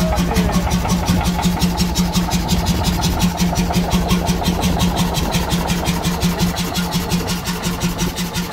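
Ballot 1SD single-cylinder hot-bulb semi-diesel stationary engine running on its first start, with a steady, regular beat.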